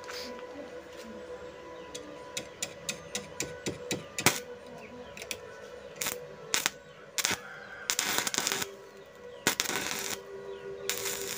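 Stick (arc) welding: the electrode is tapped on the steel in a quick string of sharp clicks to strike the arc. The arc then catches in short crackling bursts that stutter on and off, each lasting under a second, over a steady hum.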